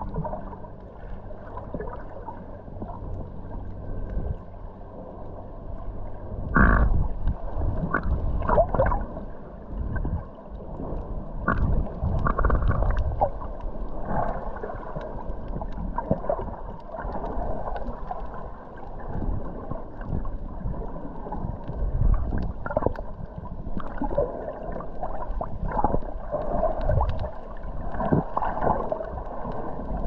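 Underwater sea sound picked up by a GoPro in its waterproof housing: muffled sloshing and gurgling of the water around a snorkeler, with irregular knocks and clicks and a faint low hum in the first few seconds.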